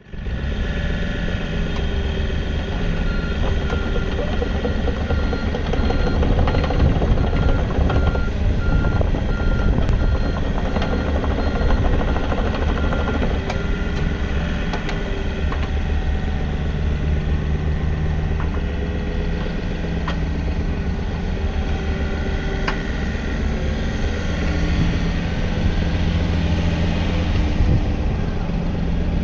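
Komatsu PC55MR-3 midi excavator's diesel engine running under hydraulic load as the upper structure and boom swing, its note shifting with the work. A rapid repeated beep sounds for about ten seconds from a few seconds in.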